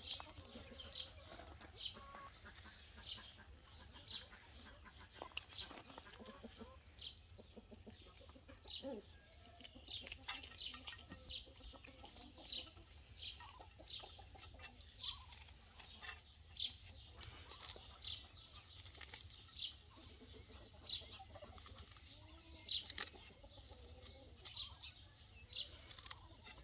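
Small knife cutting through a red onion held in the hand: short crisp slicing sounds about once a second. Hens cluck faintly in the background.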